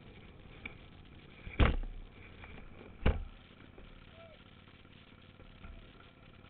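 Two sharp knocks about a second and a half apart, the first the louder, jolts picked up through the motorcycle-mounted camera, over a faint low background.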